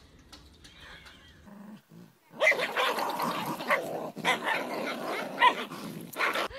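Two dogs growling and barking in a rough play-fight, tugging a toy between them. The growling starts loud about two and a half seconds in, after a quiet stretch, and stops abruptly near the end.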